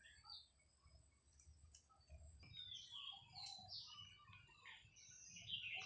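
Faint birds chirping in short scattered calls, busier in the second half, over a steady thin high-pitched tone.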